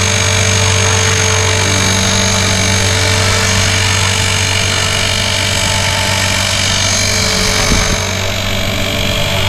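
Blade 360 Fusion electric RC helicopter running with a loud, steady gear noise over its motor's hum, from sand caught in the main spur gear. The level dips briefly about eight seconds in.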